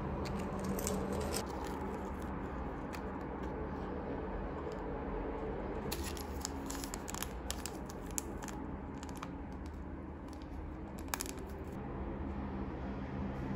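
Small clear plastic bag crinkling in short clusters as it is handled, over a steady low background hum.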